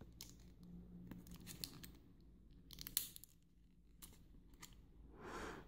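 Near silence with a few faint clicks and rustles of small objects being handled.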